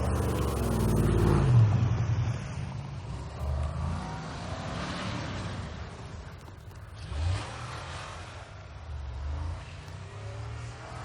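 Pickup truck engine revving in surges, rising and easing off several times, loudest about a second and a half in.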